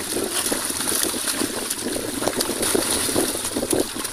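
Many fish thrashing in muddy water held in a net, a continuous dense splashing and churning.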